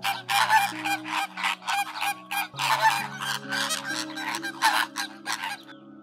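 A flock of flamingos honking, a rapid run of goose-like calls several a second that stops shortly before the end, over soft background music.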